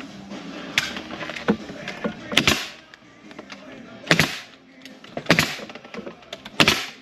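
Pneumatic stapler firing staples through sheet-metal flashing J-channel into the wall, several sharp shots about a second apart, some followed by a brief hiss of air.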